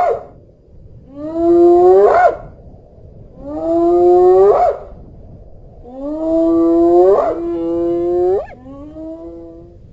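Spotted hyena whooping: a series of drawn-out calls about every two and a half seconds, each holding a low note and then sweeping sharply up in pitch at its end.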